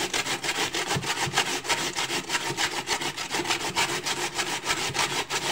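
Peeled raw potato grated fast on a stainless steel box grater, a rapid rhythmic rasping of about six strokes a second.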